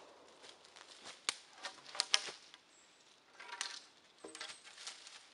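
Long dead-wood poles knocking and clacking against one another as they are carried and then stood up against a tree trunk, with footsteps rustling through dry fallen leaves. The sharpest knocks come in a quick pair about two seconds in.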